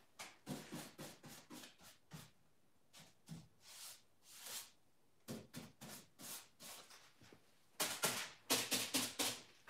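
Scattered handling noises: light rustles and small knocks of someone moving about and picking up painting things, louder and more frequent about eight seconds in.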